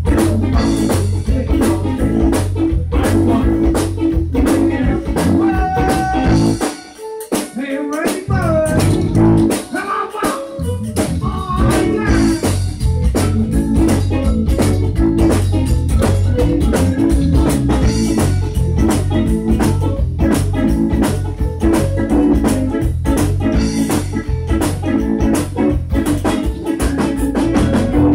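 Live zydeco band playing an instrumental passage: drums, electric bass and an organ-toned keyboard over a steady beat. About seven seconds in, the bass and drums drop out for a few seconds under a sliding lead line, then the full band comes back in.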